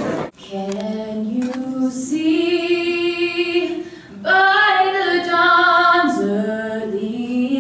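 A girl's voice singing solo and unaccompanied, in long held notes with a brief pause about four seconds in.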